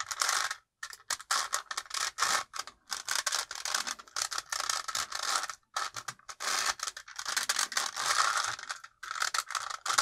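A 5x5 Rubik's cube being turned fast by hand while the edge-positioning algorithm is worked through: plastic layers clicking and scraping in quick runs, broken by a few short pauses.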